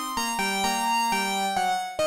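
Synthesizer preset from the Maschinestrument Vol 1 expansion for Native Instruments Maschine playing a bright electronic sequence of short notes, about four a second and each at a new pitch, over a lower line that steps down.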